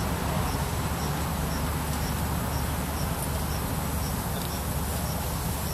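Insect chirping at an even pace, about two short high chirps a second, over a steady low rumble of background noise.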